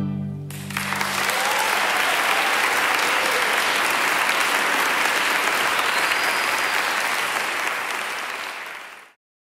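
Audience applauding, breaking in right after a string orchestra's final chord rings off in the first half-second. The applause holds steady, then fades out quickly near the end.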